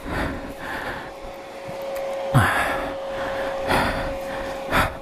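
A rider breathing hard inside a helmet, with three loud breaths about two and a half seconds in, near four seconds and just before the end. A steady hum runs underneath, and the motorcycle engine is not running.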